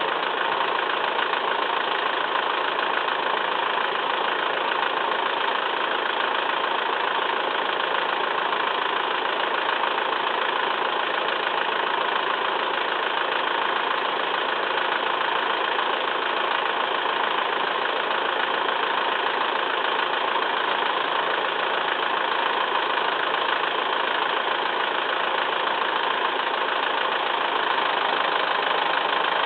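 Massey Ferguson 2635 tractor's diesel engine running steadily.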